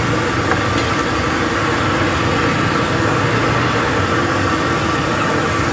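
Battered mushrooms deep-frying in a large wok of hot oil, a loud steady sizzle, with a steady engine hum underneath.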